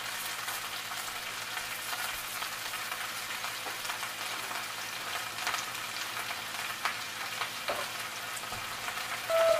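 Vegetables sizzling in frying pans on a gas stove: a steady hiss with scattered crackles. Music comes in at the very end.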